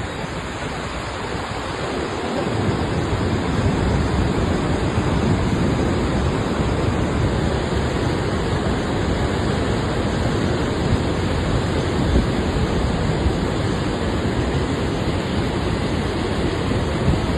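Floodwater rushing in a torrent, a steady, heavy noise that swells over the first two seconds and then holds.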